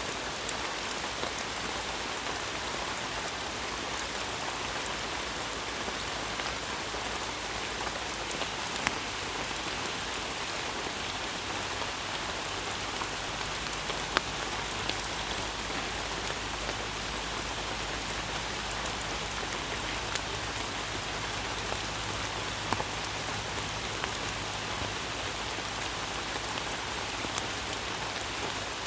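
Steady rain falling on a forest canopy: an even hiss of drops on leaves, with scattered louder single drops pattering close by.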